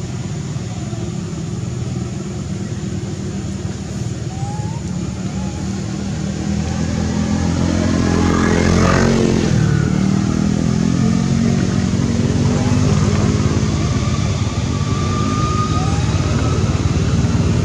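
Motor vehicle engine running steadily, swelling louder about halfway through as it passes close by, then staying loud.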